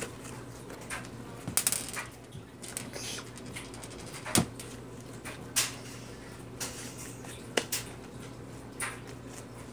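Bead-filled slime being kneaded and squeezed by hand: irregular squelches and sharp pops, over a steady low hum.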